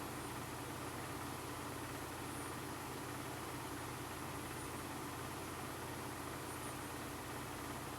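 1999 Lasko 12-inch Model 2000 table fan running steadily, its GE motor giving a low hum under the whir of the blades, with faint brief high chirps every two seconds or so.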